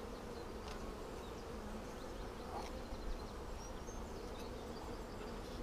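Honeybees humming from an open hive, a steady even buzz.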